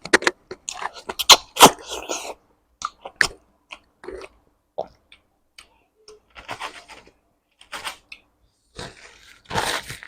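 Close-miked mouth sounds of a person eating rice and curry: chewing, wet lip smacks and clicks. A quick run of clicks comes in the first couple of seconds, then sparser smacks and short spells of chewing.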